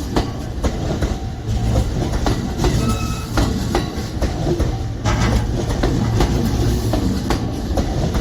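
A train passing close by, its wheels clacking rhythmically over rail joints above a steady low rumble.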